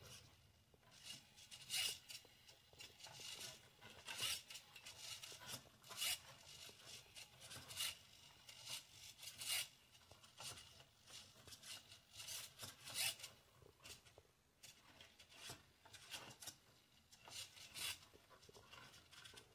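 Small hobby servo motors of a dual-axis thrust-vectoring gimbal whirring in short, faint bursts about once or twice a second as they respond to the gyro sensor being tilted by hand.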